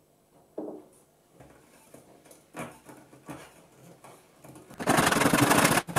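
Light knocks and taps of wooden dowel pins and a plastic glue bottle being handled as the pins are glued into a plywood shelf. About five seconds in, a much louder rapid rattling starts and lasts nearly two seconds.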